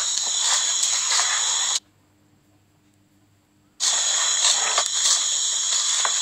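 A steady, high-pitched chorus of night insects. Twice, about two seconds in and again about two seconds later, it cuts out completely and then comes back at once, the way an audio stream drops out.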